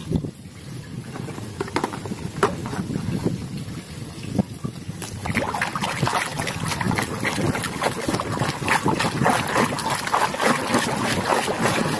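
Muddy water sloshing and splashing in a plastic tub as a hand swishes and scrubs a toy under the surface, busier and louder from about five seconds in.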